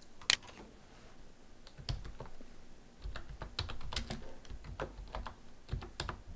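Computer keyboard being typed on, a run of irregular keystrokes starting about two seconds in. A single sharp, louder click comes just after the start.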